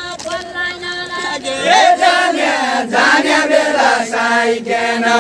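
Deuda folk song sung in chorus by a group of voices, long held notes in a chant-like tune. A stronger voice comes in with a rising note about two seconds in, and the singing grows louder.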